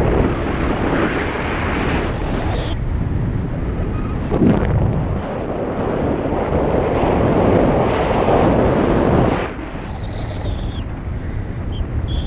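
Wind buffeting the camera microphone of a paraglider in flight: a loud, uneven rush, heaviest in the low end, that eases somewhat about three-quarters of the way through.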